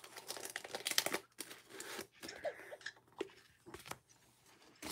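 Foil wrapper of a Pokémon TCG booster pack crinkling and rustling as it is opened by hand, then the cards are handled, with scattered small clicks. The loudest crinkle comes about a second in.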